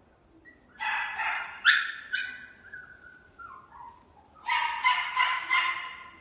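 Long-haired Chihuahua puppy yipping and barking in a high pitch: a few sharp yips about a second in, trailing off into a falling whine, then a quick run of about four yips near the end.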